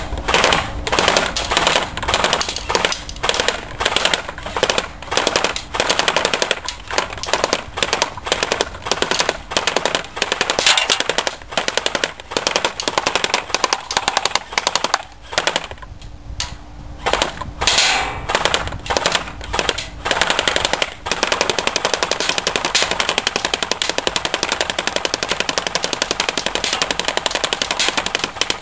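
Airsoft AK-47S rifle firing full-auto at a box: a string of short bursts of rapid clicking shots, a brief pause about halfway through, then one long unbroken burst over the last seven seconds or so.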